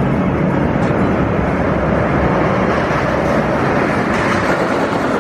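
Roller coaster train running along its track: a loud, steady rumble.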